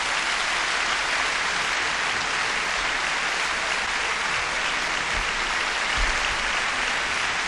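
Concert audience applauding, a steady, even clapping.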